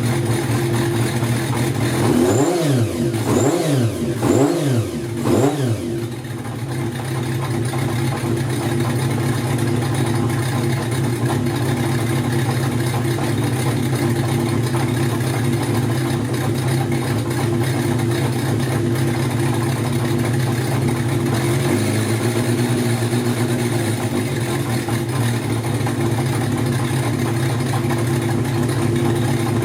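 Kawasaki Zephyr's air-cooled inline-four on racing carburettors, idling. It is blipped four times in quick succession a couple of seconds in, each rev rising and falling back, then settles to a steady idle.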